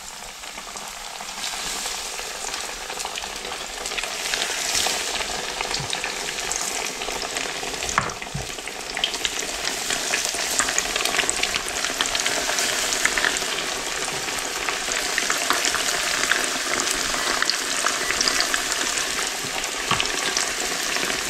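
Battered crappie chunks frying in smoking-hot grease: a steady crackling sizzle that grows louder over the first few seconds as the pieces go in, then holds, with a few sharper pops.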